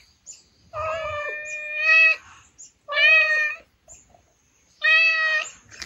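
A street cat meowing three times, each meow held at a steady pitch. The first is long, about a second and a half, and the other two are shorter.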